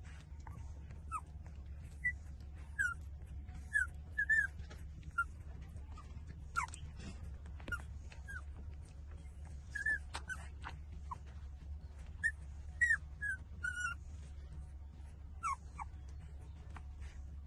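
Very young puppies whimpering while they nurse: many short, high squeaks, most falling in pitch, scattered throughout, with a few sharp clicks.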